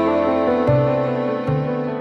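Background music: slow, sustained chords over a low bass note that changes at about half a second and again at about a second and a half.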